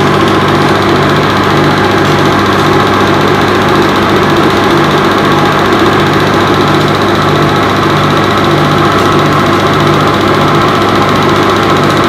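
Film projector running steadily: a constant motor hum with a regular pulse about twice a second.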